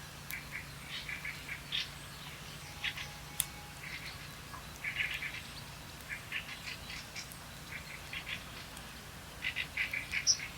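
Small songbirds chirping in a forest: short high notes in quick runs of several, louder near the end, with one sharp tick about a third of the way in. A faint steady low hum lies underneath.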